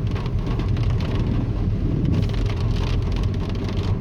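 Car driving in rain: a steady low rumble of engine and tyres, with rain and water pattering on the car's body.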